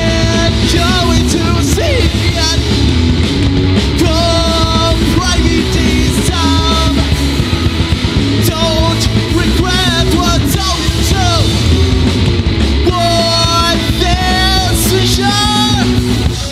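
Live punk rock band playing a song on electric guitars, bass and drum kit, loud and continuous, heard straight from the mixing desk rather than through the room.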